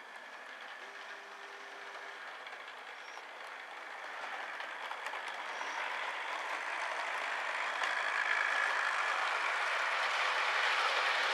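Model Class 350 electric multiple unit train running on its track: the motor's whir and the wheels rolling on the rails, growing steadily louder as the train draws near, then holding steady for the last few seconds.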